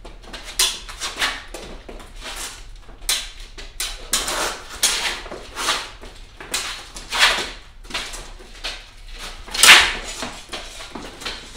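Fencers' shoes scuffing and stepping on a concrete garage floor during a smallsword bout: irregular short scrapes and stamps, the loudest near the end as one fencer lunges.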